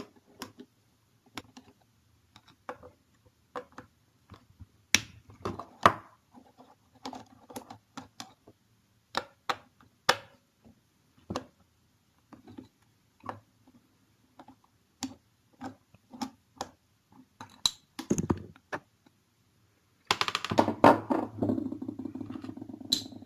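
Scattered metallic clicks and knocks of tools and parts as an industrial sewing machine's presser-foot assembly is taken apart, then a continuous rattle lasting a few seconds near the end.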